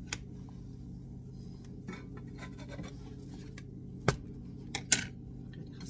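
A few short sharp clicks and knocks from handling around a nonstick frying pan with a pancake cooking in it: one just after the start, then three close together about four to five seconds in, the last the loudest. A steady low hum runs underneath.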